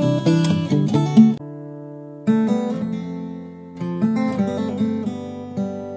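Background music on acoustic guitar: picked notes and strummed chords, with a chord left ringing about a second and a half in and another fading out near the end.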